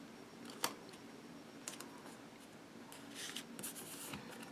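Faint handling of a vinyl sticker and its backing sheet on a planner page: a sharp tick about half a second in, a few light ticks, then soft rustling of the sheet near the end as the sticker is pressed down by hand.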